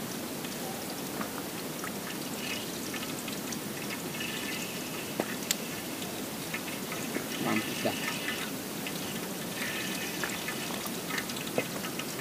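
Tongkol frying in a pan on a small gas canister stove: a steady sizzle that swells louder a few times, with a few light clicks of the utensil against the pan.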